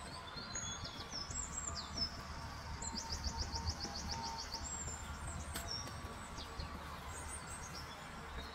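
Small songbirds chirping and whistling, with one fast trill of about ten notes a second near the middle, over a steady low rumble.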